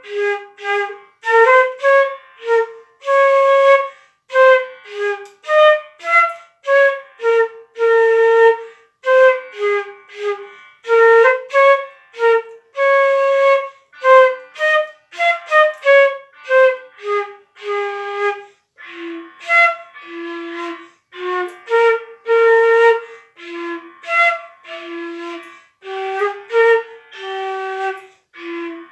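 Concert flute played solo, a lively tune in short separate notes in its low register, with brief pauses between phrases.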